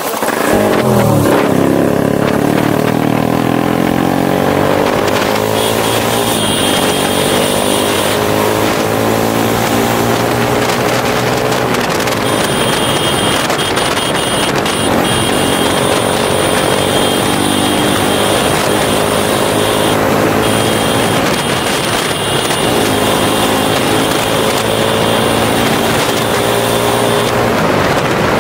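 Motorcycle engine running hard while riding, its pitch climbing as it accelerates and dropping back at gear changes and throttle lifts.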